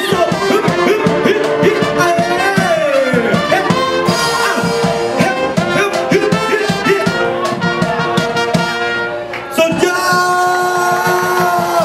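Music with brass instruments and singing, mostly short repeated notes with some held ones, dropping away briefly about nine seconds in.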